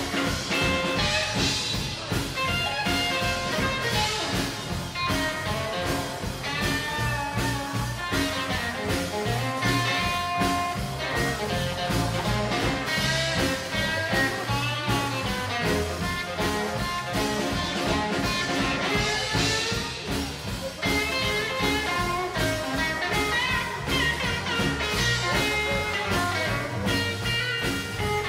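Live rockabilly band playing an instrumental passage: electric guitar, strummed acoustic guitar and drums.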